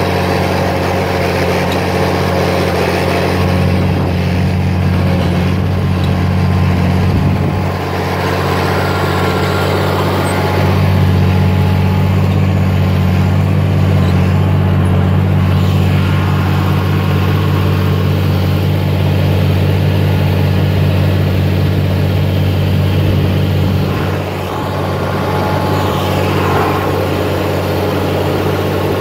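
Oliver 1855's turbocharged six-cylinder diesel engine running steadily, with two brief dips in level, about eight seconds in and again near the end.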